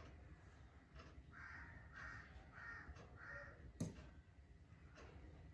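A crow cawing faintly four times in quick succession, then a single sharp tap shortly after.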